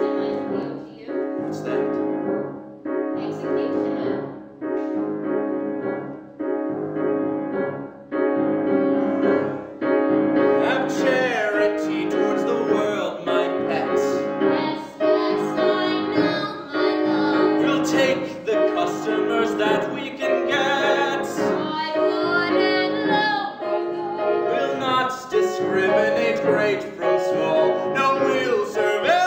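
Piano accompaniment playing short, evenly spaced chords in a steady lilting rhythm. About ten seconds in, show-tune singing joins it.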